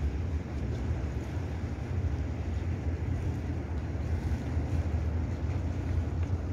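Harbourside outdoor ambience: a steady low rumble with a fainter hiss above it, with no single sound standing out.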